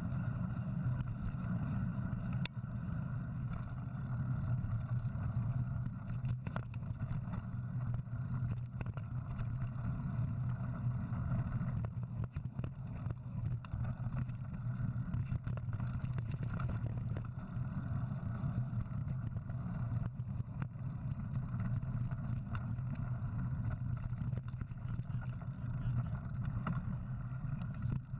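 Steady low rumble of wind on the microphone and mountain bike tyres rolling over a dirt trail, with scattered small clicks and knocks as the bike goes over bumps.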